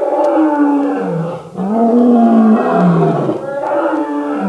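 Dinosaur roar sound effect for a Tarchia: three long, deep, pitched roars, each sagging in pitch as it ends, with short breaks about a second and a half and three and a half seconds in.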